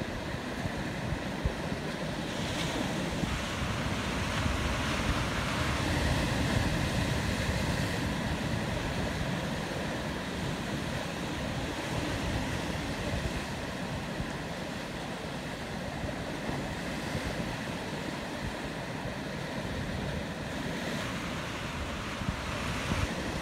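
Sea surf washing and breaking against a rocky shore and a breakwater of concrete blocks, a continuous rushing that swells louder a few seconds in and then eases.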